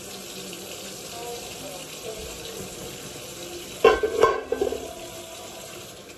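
Food frying in a pan with a steady sizzle. About four seconds in come two sharp knocks with a brief ring, like a utensil or pan striking.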